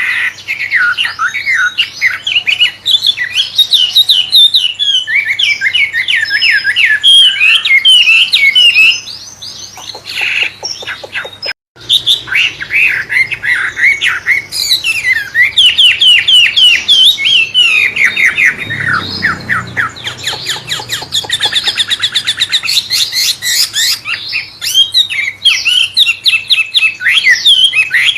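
Wambe songbird singing a loud, varied, fast song of rapid chirps, slurred whistles and trills, in the style of a white-rumped shama (murai batu). The song stops dead for a moment a little before halfway, then resumes with runs of very fast trills.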